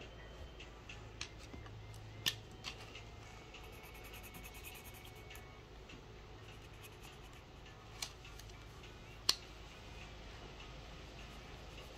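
Soft pastel scratching on sketchbook paper in quick back-and-forth colouring strokes, with a fast run of strokes a few seconds in. A few sharp clicks stand out, the loudest near the start and late on.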